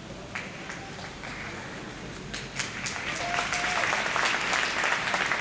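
Audience applauding a figure-skating performance: scattered claps at first, swelling into loud, dense applause about three seconds in.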